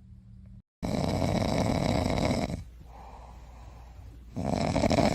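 Loud snoring: two long noisy breaths of about two seconds each, with a quieter pause between them, starting right after a brief cut about a second in.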